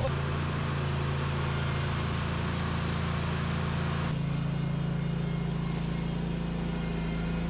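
An engine running steadily with a low hum, its tone shifting slightly about four seconds in.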